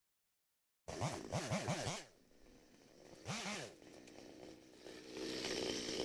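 Goats bleating: a quavering bleat whose pitch wobbles up and down several times, starting about a second in, then a shorter single bleat a couple of seconds later.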